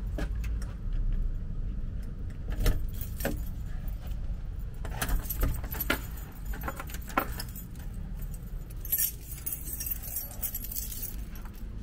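A bunch of keys jangling, with several sharp clicks as a key is worked in a deadbolt lock and the front door is unlocked and opened, over a steady low rumble.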